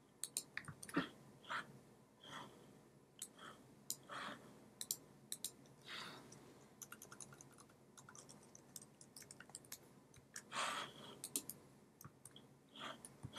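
Faint, irregular clicks and taps of a computer mouse and keyboard as code is typed, saved and windows are switched, with a few softer, longer noises in between.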